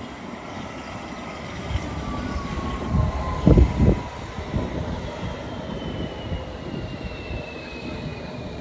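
London Underground S8 stock train running into the platform: rumble and wheel noise, with a whine from the train that falls in pitch as it slows. A few loud thumps come about three and a half seconds in.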